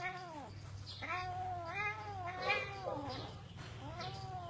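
A cat meowing in repeated long, drawn-out yowls, each rising and falling in pitch over a second or two, over a steady low hum.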